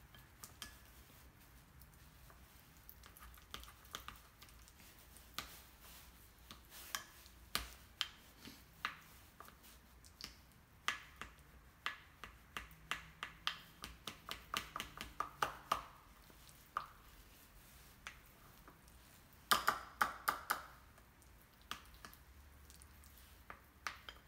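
Plastic fork mashing avocado in a bowl: a string of irregular sharp clicks and taps as it strikes the bowl, sparse at first, coming about two or three a second through the middle, with the loudest cluster a few seconds before the end.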